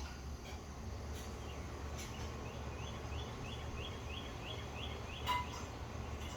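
A bird calling a rapid series of short rising chirps, about three or four a second for roughly three seconds, over a steady low background rumble. A single sharp click sounds near the end.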